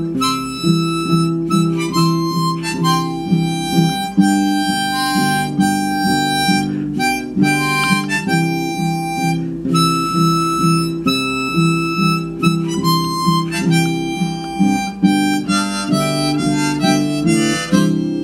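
Instrumental break of a 1930s western song: a harmonica plays the melody in long held notes over a steadily strummed acoustic guitar.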